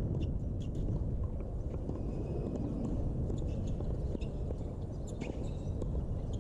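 Steady low rumble of outdoor background noise, with scattered light knocks of tennis balls against rackets and a hard court; the sharpest knock comes about five seconds in.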